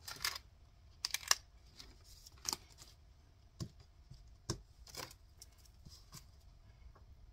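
Clear plastic zipper pouches of a cash-envelope ring binder being flipped and handled with paper bills: a scattered series of short, faint rustles and clicks, the loudest about a second in.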